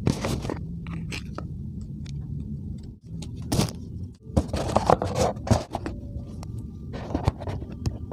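Small objects being handled: scattered sharp clicks and a stretch of rustling and scraping about halfway through, over a steady low rumble.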